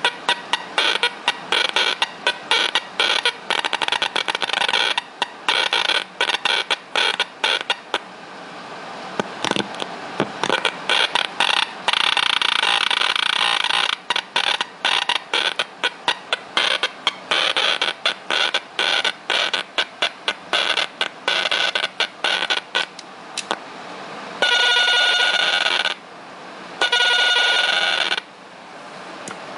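Red Casio mini keyboard played through a circuit-bent Crunchbox filter: crunchy, distorted electronic buzz broken into rapid stuttering clicks, its texture shifting as the box's knobs and switches are turned. Near the end two held buzzy tones sound briefly.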